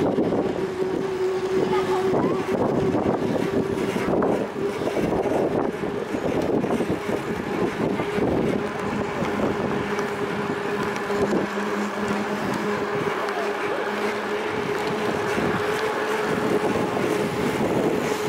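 Wind rushing over the microphone during a bicycle ride, with tyre and road noise and a steady hum. A second, lower hum joins for a few seconds in the middle, and there are scattered light clicks.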